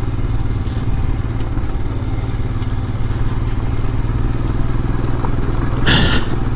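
Royal Enfield Scram 411's 411 cc air-cooled single-cylinder engine running at a steady, even pace while the bike rides along a gravel road, with a constant rumble of tyres on gravel. A brief, louder burst of sound comes near the end.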